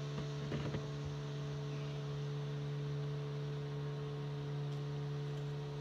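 A steady electrical hum, with a few faint clicks about half a second in.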